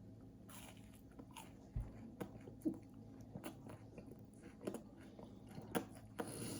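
A person chewing a crispy Rice Krispie treat: faint, irregular crunches and mouth clicks.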